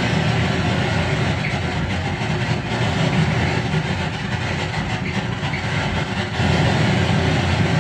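Loud, steady wall of amplified noise music, heaviest in the low end, with no melody or beat; it grows a little louder about six seconds in.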